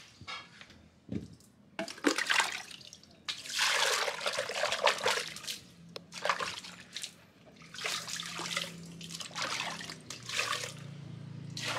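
Water splashing and sloshing in a wooden mortar as it is rinsed out, poured in from a plastic dipper and swirled by hand, in several separate splashes with the longest a little over three seconds in.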